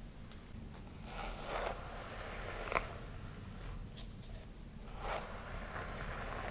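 Close-up strokes through long hair, swishing in swells about a second long, with a sharp click a little under three seconds in.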